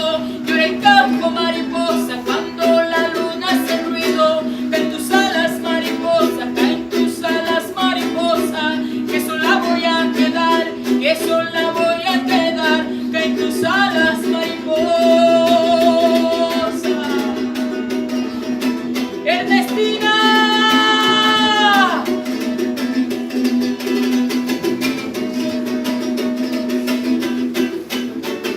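Music: a steadily strummed small plucked string instrument, ukulele-like, with a melody line over it; about two-thirds through, one long held note falls away.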